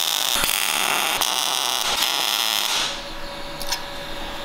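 MIG welder arc crackling steadily as it welds steel, stopping about three seconds in.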